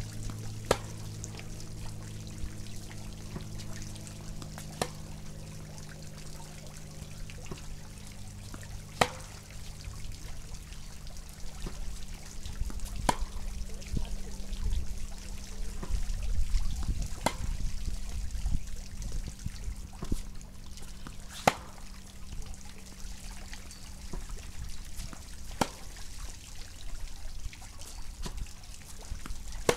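Tennis groundstrokes hit with a Yonex VCORE Tour G racket: a sharp pock of ball on strings about every four seconds, eight in all, with fainter taps of the ball between them. A low rumble runs underneath throughout.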